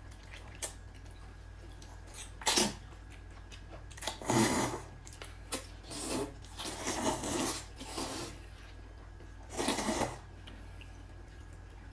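Several short scraping, rubbing noises with a few light clicks, coming in separate bursts every second or two.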